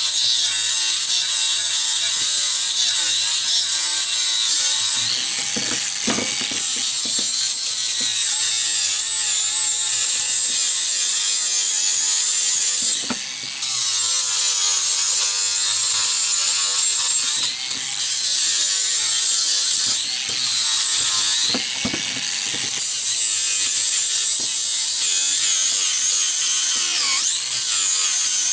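Angle grinder grinding steel, its motor whine sagging and recovering under load. The disc lifts off the metal briefly a few times.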